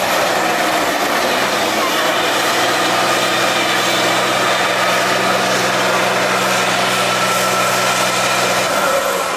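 Tatra 813 eight-wheel-drive trial truck's diesel engine running hard at steady revs under load as it climbs a steep dirt slope, easing off near the end.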